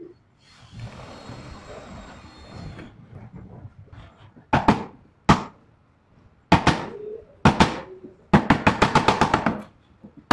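Hammer striking a chisel into a wooden door jamb to cut the recess for a door-knob striker plate: a few separate blows, then a quick run of taps near the end. A brief scraping hiss comes first.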